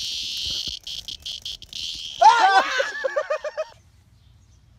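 A large winged insect held in a child's hand buzzing loudly, with brief breaks, until it stops about three seconds in. Over the end of the buzz a child squeals and laughs in quick bursts.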